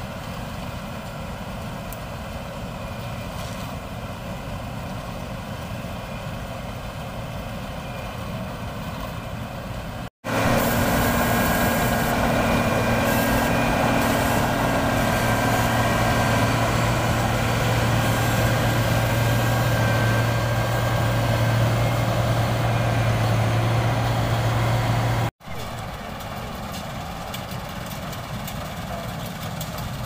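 New Holland combine harvester running steadily as it cuts rice: its diesel engine and threshing machinery make a continuous hum. About ten seconds in the sound jumps abruptly to a much louder, close-up level with a strong low drone, then drops back to the quieter level about 25 seconds in.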